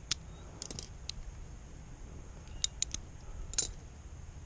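Scattered light clicks and taps from hand tools being handled during an oil change: one near the start, a small cluster soon after, a few more past the middle and a sharper one near the end, over a low steady background rumble.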